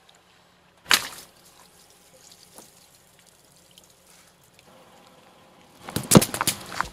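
Water balloons bursting under a car tyre: one sharp pop with a splash about a second in, then a quick run of several pops and splashes near the end, with faint dripping between.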